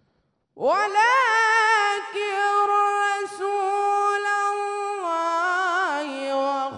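A young male reciter chanting the Quran in the melodic tajweed style into a microphone: after a short breath, he holds a long, high note with quavering ornaments, then steps down to lower notes about five and six seconds in.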